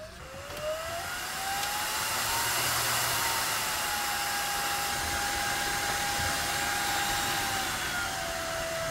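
PC fans spinning up at power-on, led by the Coolerguys 1U server-style CPU cooler's small fan: a whine that rises in pitch over the first two seconds, then holds steady over a loud rush of air, stepping down a little near the end. The cooler is struggling to cool a 13700KF, so the fans run hard.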